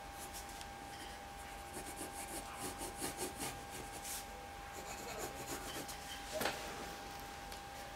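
Pencil scratching on drawing paper in short, quick sketching strokes, busiest in the middle, with one sharper scrape about six and a half seconds in.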